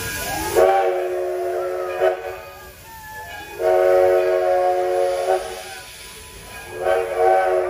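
Steam locomotive's chime whistle, several notes sounding together, blowing two long blasts with a third beginning near the end, over the hiss of escaping steam.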